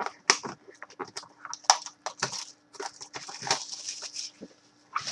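Cellophane shrink-wrap being torn and peeled off a trading card box: a run of crinkling, ripping rustles.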